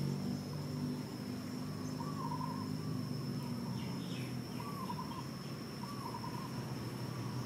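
Outdoor background: a steady high-pitched whine, a low hum that fades after about three seconds, and a few short warbling calls at intervals.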